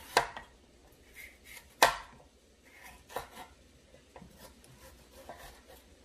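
Kitchen knife cutting vegetables on a wooden cutting board: two sharp knocks of the blade on the board, near the start and just before two seconds in, then lighter, irregular cuts.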